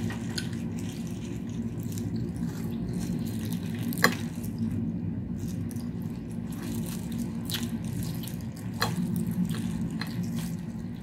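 Wet squishing and small clicks of buttered crab being pulled apart with plastic-gloved hands, with a sharper click about four seconds in, over a steady low hum.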